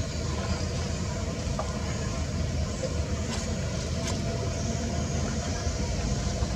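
Steady low rumble of a motor vehicle engine running, with two faint clicks about three and four seconds in.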